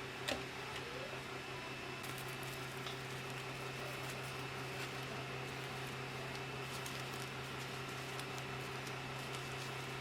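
Steady low electrical hum with a sharp click about a third of a second in, then scattered faint light ticks.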